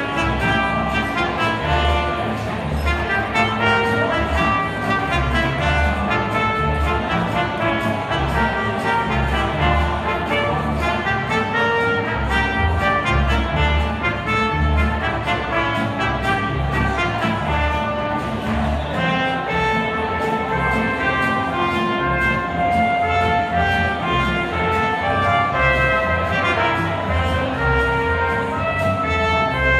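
Mariachi band playing an instrumental live: two trumpets carry the melody over strummed acoustic guitars and a steady, pulsing bass line.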